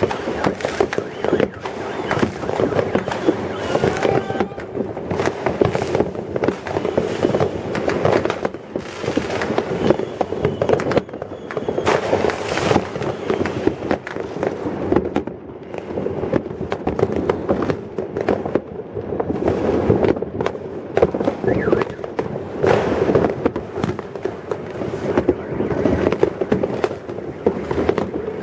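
New Year's fireworks going off many at once: a dense, unbroken crackle of bangs and pops with no pauses.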